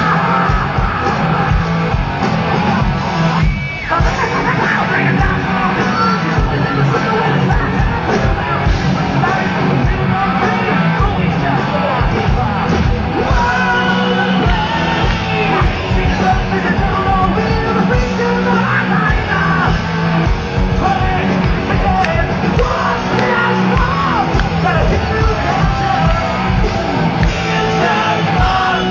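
Live hard rock band playing loud and without a break, with a yelled, sung male lead vocal over the band, heard from within a stadium audience.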